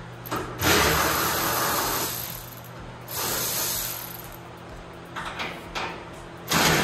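Spray hissing in three bursts: a long one of about two seconds, a shorter one a second later, and a brief one near the end.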